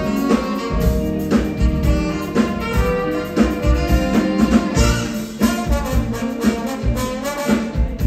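Live big band playing jazz, horns over a drum kit keeping a steady beat.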